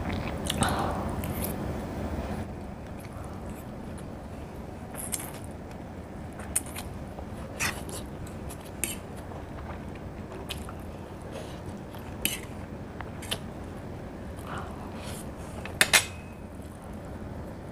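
A person eating noodles off a fork: chewing, with short sharp mouth smacks and clicks every second or two, the loudest a double smack near the end, over a steady low hum.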